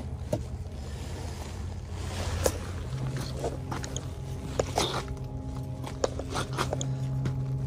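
A boat engine droning low and steady, joined about three seconds in by a steady humming tone. Scattered small clicks and rustles from gloved hands handling bait.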